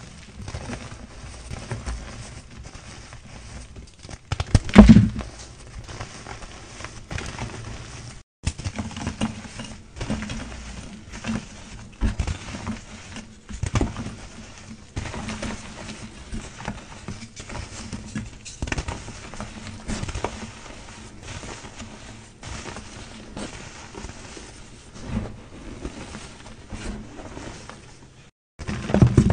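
Hands crushing and squeezing dyed gym chalk in a tray of loose chalk powder: a run of irregular soft crunches and powdery crumbling, with one loud crunch about five seconds in. The sound cuts out briefly twice where clips are spliced.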